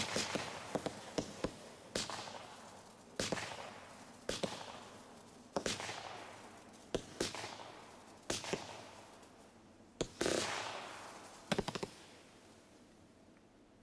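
Piromax Lynx 'silent fireworks' battery, a 36-shot 25 mm cake, firing shot after shot. Each shot is a sharp pop followed by a hissing, crackling tail that dies away, about one every second or so and sometimes in quick pairs. The last shots come near the end, then the hiss fades.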